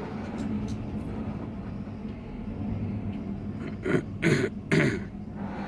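Steady low hum of a vehicle creeping along, heard from inside its cabin. About four seconds in, a person coughs three times, loudly.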